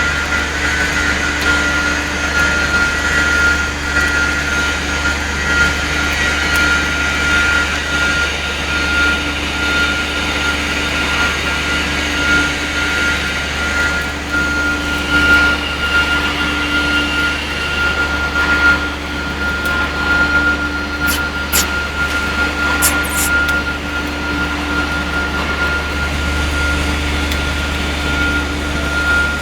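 Electric welding at work: an even, continuous hiss with a constant low hum and a steady high whine underneath, and a few sharp ticks about two-thirds of the way in.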